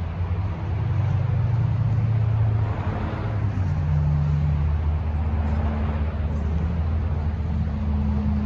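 Road traffic on a nearby highway: a steady low rumble with the drone of truck engines.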